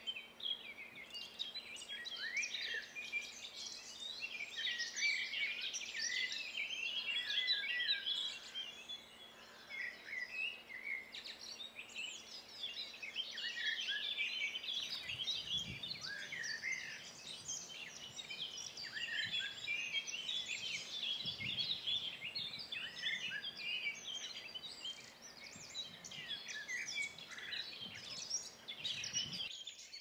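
Many songbirds singing at once, a dense chorus of overlapping chirps and trills, with a faint steady low hum underneath.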